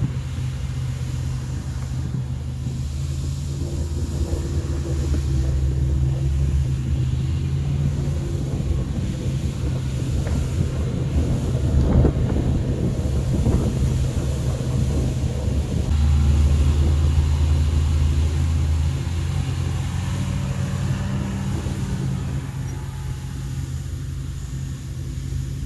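Snowmobile engine running steadily on the move through snow, its hum swelling and easing a little, with wind noise on the microphone.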